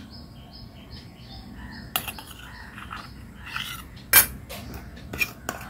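A small bird chirps in a quick repeated series. About two seconds in, steel spoons start clinking and scraping against steel bowls as flour is tipped in, with one sharp clink a little past the middle.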